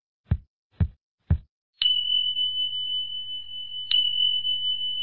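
Intro-animation sound effects: three short soft thuds about two a second, then about two seconds in a steady high ringing tone starts over a faint low hum. The tone is struck again with a sharp ping near the end.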